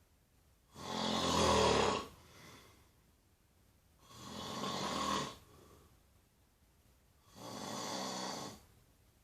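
Snoring: three long snores about three seconds apart, each lasting about a second, with quiet between them.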